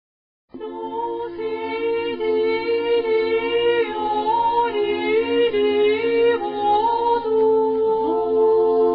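Music starts abruptly about half a second in: a melody of long held notes that move up and down in steps, over a pulsing low bass line.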